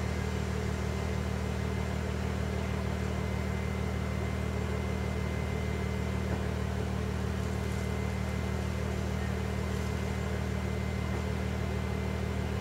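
An engine idling steadily nearby, a constant low hum with a fine even pulse that does not change.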